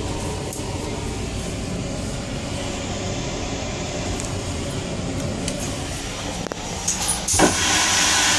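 Railcar toilet flushing: a click or two from the push button, then about seven seconds in a sudden loud rush that turns into a steady loud hiss. A steady low rumble lies underneath throughout.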